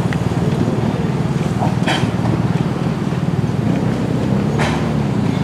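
Narrow-gauge 2-6-2T steam locomotive No. 8 'Llywelyn' pulling away slowly, a few sharp exhaust chuffs, about two seconds in and again near the end, over a steady low rumble.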